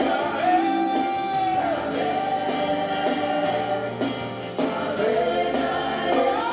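Live worship music: a voice holds long, wordless sung notes over a band accompaniment with guitar and bass.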